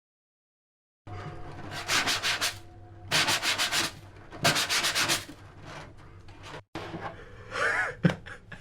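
Cartoon sound effect of rasping strokes, like sanding or sawing: three quick bursts of rapid back-and-forth scrapes over a low hum, starting after about a second of silence. Near the end come a short wavering tone and a sharp click.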